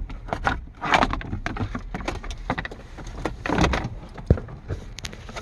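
Hard plastic interior trim panel on a 2000 Nissan Frontier being worked into place around the e-brake: irregular clicks, knocks and rubbing of plastic, with one sharp click about four seconds in.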